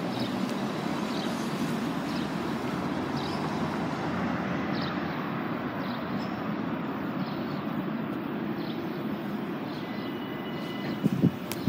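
2016 Nova Bus LFSe battery-electric city bus driving past close by: a steady rush of tyre and road noise with no engine note. Two sharp knocks near the end.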